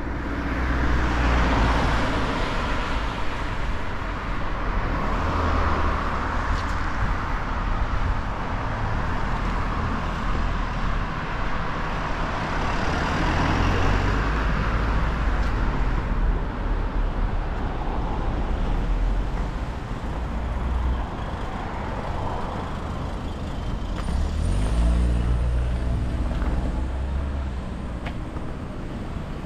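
Road traffic: cars passing one after another, their tyre and engine noise swelling and fading. Near the end an engine note rises briefly.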